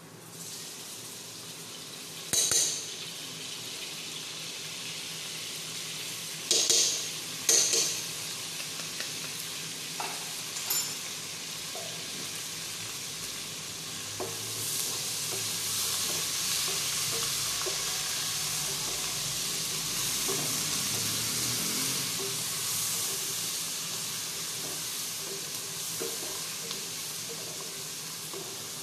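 Sliced onions sizzling in hot oil in a nonstick pan, being fried to light brown as a spatula stirs them. A few sharp clatters of the spatula against the pan come in the first ten seconds, and the sizzle grows louder about halfway through.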